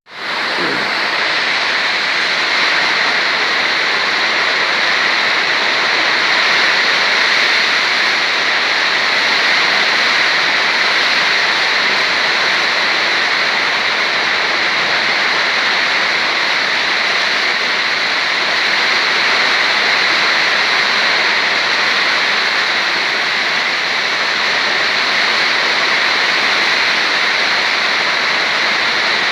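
Heavy rain pouring steadily in a summer storm, an even loud hiss without a break.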